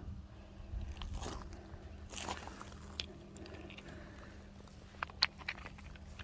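Footsteps crunching on gravel and slag, irregular, with a few sharp clicks about five seconds in.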